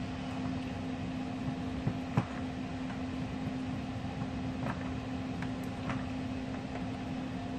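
A steady mechanical hum with a constant low tone, and a few light clicks of a metal knife and fork against a plastic container while pork roast is pulled apart, the sharpest about two seconds in and more a few seconds later.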